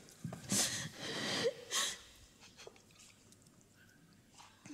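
A few short, heavy breaths close to a microphone in the first two seconds, then quiet.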